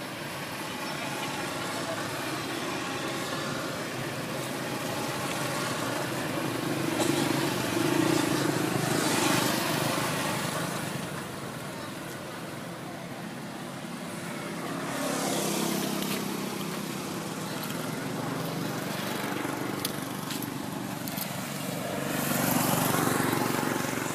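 Motor vehicles passing by: road traffic noise that swells and fades several times, loudest about eight seconds in and again near the end.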